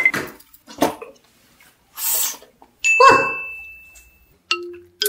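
Edited comic sound effects: a short hiss about two seconds in, then a bright ding about three seconds in with a high tone that rings on for over a second, and a short low blip near the end.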